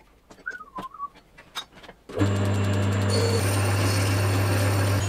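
A few light clicks and a short squeak, then about two seconds in a metalworking lathe starts and runs with a steady hum and hiss, turning a metal disc.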